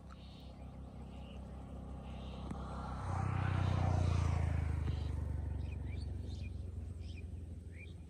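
An unseen motor vehicle's engine passing by: a low engine hum that swells about three seconds in, is loudest around the middle, then slowly fades. A few short bird chirps near the end.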